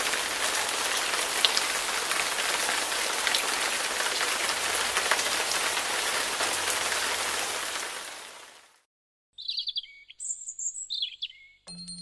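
Steady rain with scattered drop ticks, fading out about two-thirds of the way in. After a short gap a bird chirps several times, and music begins just at the end.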